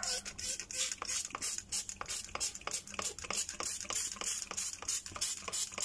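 Hand trigger spray bottle squirted rapidly onto a rusty cabinet hinge, about four to five short hissing squirts a second.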